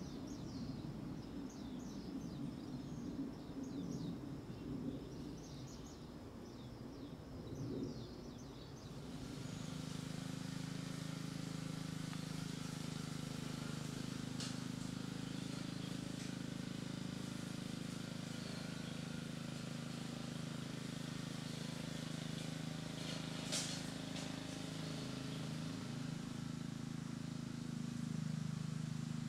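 Outdoor ambience with a run of short high chirps over a low rumble. About nine seconds in it changes abruptly to a steady low hum, engine-like, with a light hiss and a couple of faint clicks.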